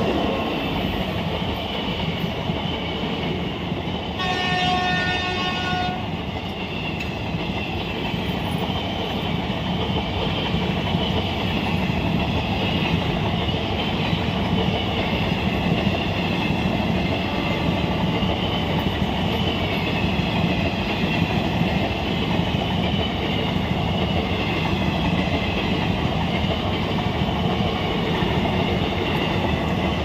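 An Indian Railways train hauled by twin electric locomotives passing close by: the steady rumble and wheel clatter of its coaches on the rails. A train horn sounds once for about two seconds, about four seconds in.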